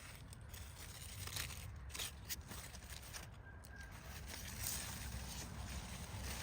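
Hazel leaves and branches rustling as they are handled, with scattered crackles and a low rumble of wind on the microphone.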